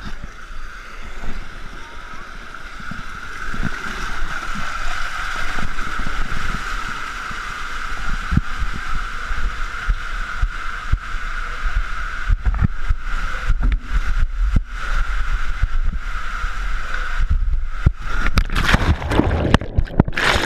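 Water rushing through an enclosed tube water slide as a rider slides down it, a steady rushing with many low bumps and knocks of the body against the tube. Near the end comes a loud splash into the pool, then bubbling underwater.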